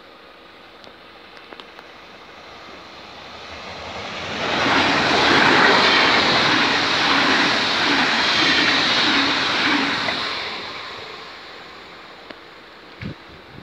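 Red regional passenger train passing a level crossing at speed: a rising rush of wheels on rails about four seconds in, loud for about six seconds with a faint regular beat, then fading away as the train moves off.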